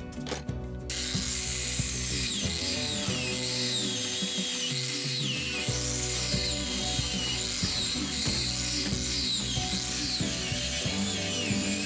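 Angle grinder with a cup brush scrubbing a cast-metal mill frame held in a vise. It starts about a second in, and its pitch repeatedly dips and recovers as the brush is pressed on. Background music plays underneath.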